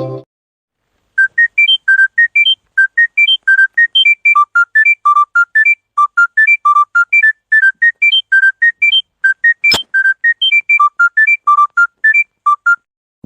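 A monophonic phone ringtone: a quick melody of short, high, pure beeping notes, about four a second, starting about a second in. A single sharp click sounds about ten seconds in.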